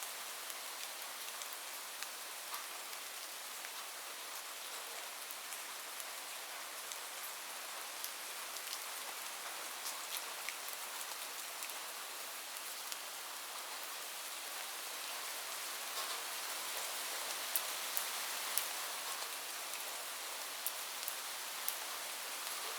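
Steady rain falling on a roof, a dense hiss with scattered sharp drop hits standing out, a few louder ones clustered about three quarters of the way through.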